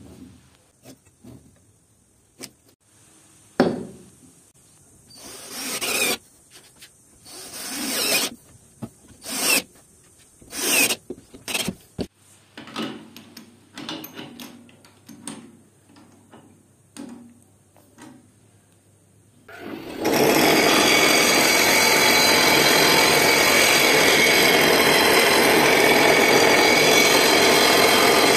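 Scattered knocks and clicks of a wooden block being handled and clamped in a lathe's four-jaw chuck with a chuck key. About two thirds of the way in, a bench grinder starts a loud, steady grinding as a turning gouge is sharpened on its wheel.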